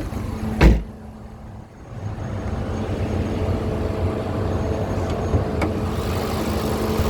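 The 2018 Buick Cascada's 2.0-litre turbocharged four-cylinder idling steadily and smoothly. A single loud thump comes about half a second in, the sound drops briefly, and the idle then builds back up and holds.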